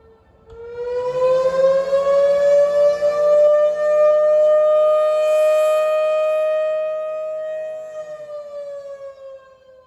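Pole-mounted fire station siren sounding a volunteer fire call. Its pitch rises about half a second in, holds steady at full volume, then slides down and fades near the end as the siren winds down.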